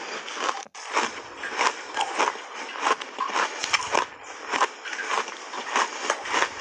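Chewing a mouthful of ice coated in matcha and milk powder: steady crunching, a little under two crunches a second, with a brief dropout under a second in.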